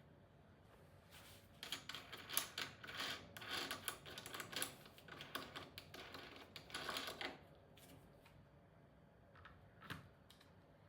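A quick, dense run of small clicks and rattles lasting about six seconds, then two faint clicks near the end.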